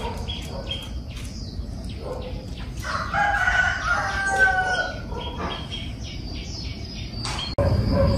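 A rooster crowing once, a drawn-out call about three seconds in lasting about a second and a half, amid scattered short clicks.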